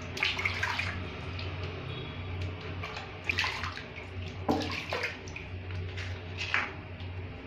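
Water splashing and sloshing in a plastic basin as a kitten is washed by hand, in several separate bursts over a steady low hum.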